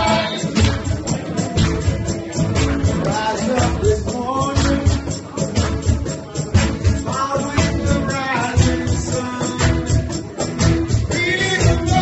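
Live band playing a song: sung lead vocal over acoustic guitar and bass, with a tambourine shaken in an even beat.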